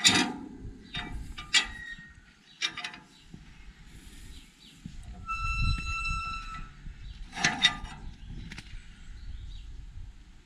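An old painted iron gate being worked by hand. Its metal latch bar clanks and rattles several times, and the hinge gives one steady squeal lasting over a second midway. A loud clank near the end comes as the gate meets its stone post.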